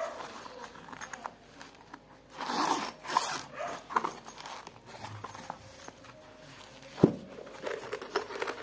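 Hands handling a hard-shell zippered pencil case: bursts of zipper and rubbing noise, then a sharp thump about seven seconds in as the case is shut, followed by more rustling.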